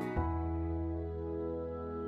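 Soft instrumental background music with sustained chords; a new chord comes in just after the start.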